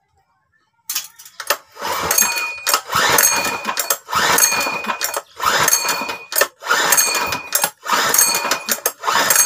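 Loncin single-cylinder four-stroke engine cranked by its recoil pull-starter about seven times in quick succession, roughly one pull a second, each pull a whirring rattle of rope and starter without the engine firing. It is being turned over to clear gasoline that flooded it when the carburetor overflowed.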